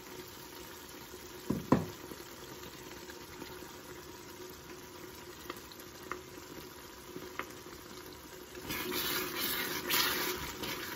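Onions cooking down with honey in a metal pot, a quiet steady sizzle. A metal spoon knocks sharply against the pot twice about a second and a half in, a few light clicks follow, and near the end a wooden spoon stirs the onions, the stirring noise louder than the sizzle.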